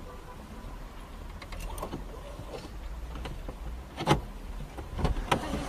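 Steady low rumble of a car driving in traffic, heard inside the cabin, with a few sharp clicks or knocks. The loudest click comes about four seconds in and another just over a second later.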